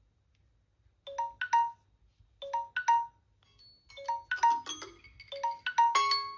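Samsung Galaxy phone alert tone: a short plucked, mallet-like figure of a low note and two higher notes, repeating about every second and a half after a brief silence, then growing fuller as more notes join near the end.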